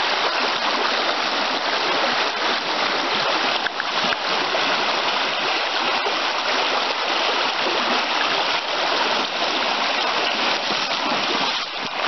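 Fast mountain stream rushing over rocks and small cascades: a steady, loud rush of water.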